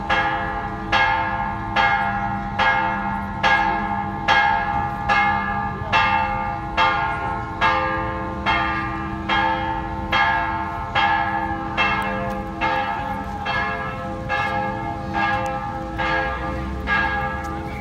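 Church bell ringing in a fast, even rhythm, about three strokes every two seconds, each stroke ringing on into the next.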